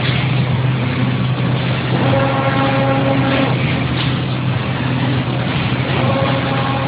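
A case making machine running, with a steady loud hum. A higher, ringing tone comes in for about a second and a half, twice, at a regular interval of about four seconds as the machine cycles.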